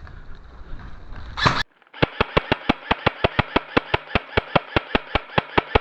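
A rapid string of sharp airsoft gun shots, about six a second, starts about two seconds in after an abrupt cut. Before it there is low rumbling wind and handling noise on the microphone, ending in one loud sharp crack.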